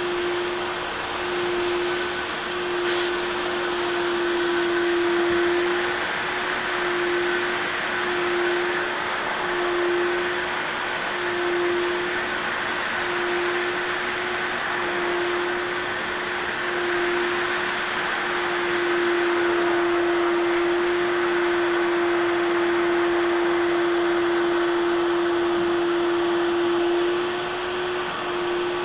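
Kärcher carpet-cleaning machines running, a rotary disc brush machine and a spray-extraction vacuum. A continuous motor and suction drone with a hum that pulses about once a second for much of the time, then holds steady for several seconds near the end.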